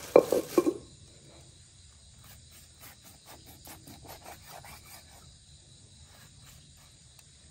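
A kitchen knife cuts raw pork on a wooden cutting board, making faint, irregular taps as the blade meets the board. Crickets chirr steadily in the background, and a short louder clatter of handling comes at the very start.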